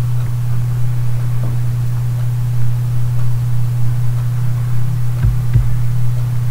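Steady low electrical hum, mains hum on the recording, with no speech. Two faint soft thumps come a little past the middle of the pause.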